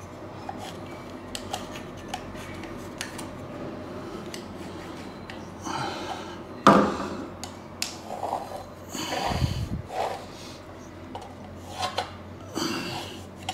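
A pencil scraping on a plastered wall as a galvanised steel back box held against it is traced around, with small metallic clicks and knocks as the box and a spirit level are handled. The sharpest knock comes about halfway through.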